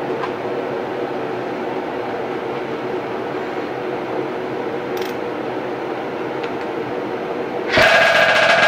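Exhaust extraction fan running steadily. Near the end, a bare two-stroke test engine with a longer secondary intake is spun with a cordless drill on its crank and suddenly fires up loud.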